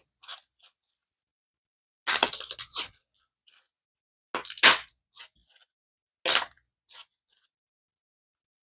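Slime being handled and squished by hand, giving several short bursts of clicks with silence between: a longer cluster about two seconds in, others at about four and a half and six seconds, and a few faint ones.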